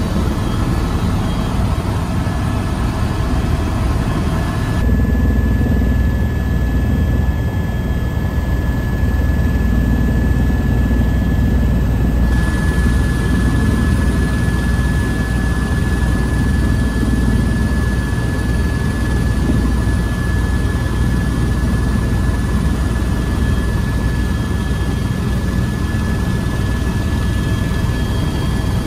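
Helicopter cabin noise heard from inside: the steady drone of the engine and rotor with a thin, steady high whine over it.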